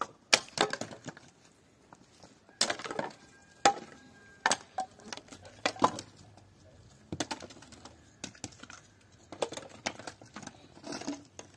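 Irregular knocks and clacks of hard objects being handled, coming in small clusters every second or so.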